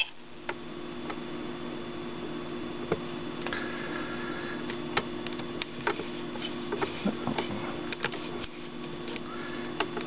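Small electric gear motors inside a Polly the Tekno Parrot robot toy whirring steadily as it moves its head and wings, with frequent clicks and ticks from its plastic gears.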